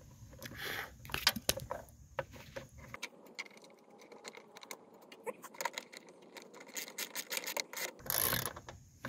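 A plastic mower-deck belt cover being handled and fitted onto a lawn tractor deck: scattered clicks, knocks and light metal clinks, with a long run of quick, quiet ratchet clicks from a socket wrench tightening the cover's bolt.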